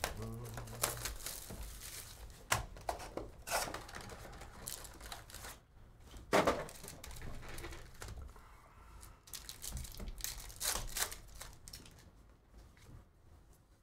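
Cardboard trading-card hobby box being opened and its foil card packs handled: an irregular run of crinkling, tearing and rustling, loudest about six and a half seconds in.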